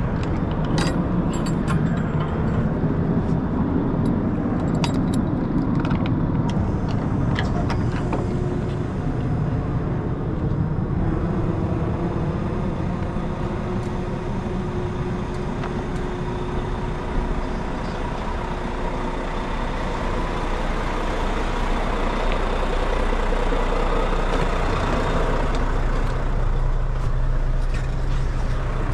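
Semi truck diesel engine idling with a steady low hum, with scattered clicks in the first several seconds.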